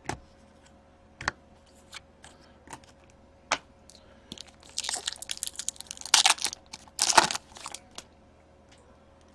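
Trading cards being handled, with scattered light clicks and taps. Then, from about the middle on, several crinkling, tearing bursts as a foil card pack wrapper is torn open.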